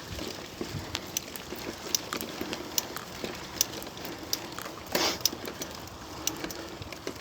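Bicycle rolling down a rough forest track: tyres crunching over gravel and the frame and chain rattling in irregular sharp clicks, with one louder rush of noise about five seconds in.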